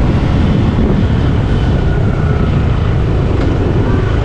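Motorcycle on the move: its engine running under a steady, loud rush of wind and road noise.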